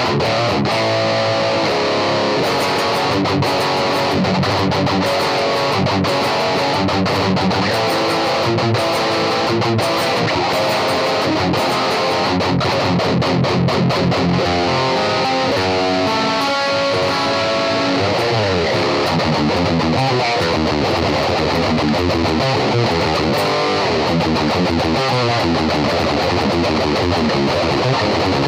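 ESP LTD M1000H-T electric guitar with active pickups, played through a 5150 high-gain amp head: continuous metal riffing, with quick runs of notes sliding up and down in the second half.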